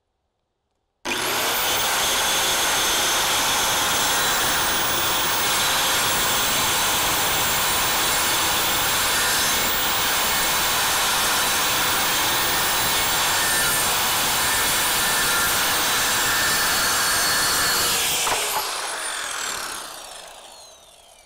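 Corded circular saw switched on about a second in, spinning up, then cutting steadily through a sheet of 12 mm plywood. Near the end it is switched off and the blade winds down with a falling whine.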